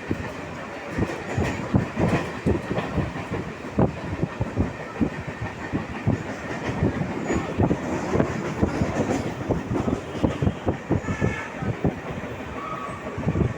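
Mumbai suburban electric local train running, heard from on board: a steady rumble with a continual, irregular clatter of the wheels over the rail joints.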